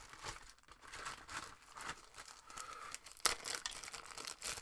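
Plastic crinkling and rustling as card sleeves and top loaders are handled, with one sharp click a little past three seconds in.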